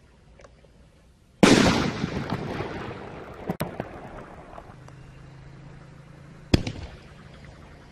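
Wild Dragon "Looks Dangerous" reloadable artillery shell breaking in the air about a second and a half in: one loud bang, then a noisy tail that fades over several seconds. A sharp crack follows a couple of seconds later, and another sharp bang comes near the end.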